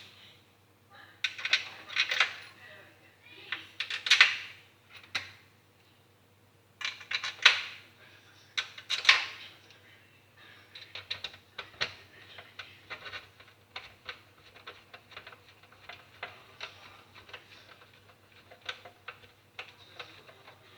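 Small metal and plastic parts and tools clinking, rattling and scraping as an Xbox 360 Slim is worked on, in clusters for the first ten seconds, then a run of light, irregular clicks.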